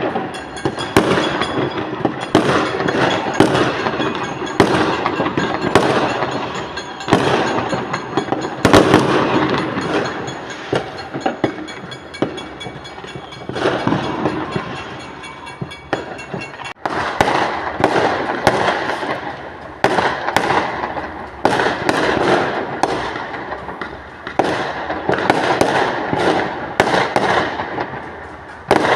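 Small fireworks display going off: a steady series of bangs, roughly one a second, each trailing off in crackling.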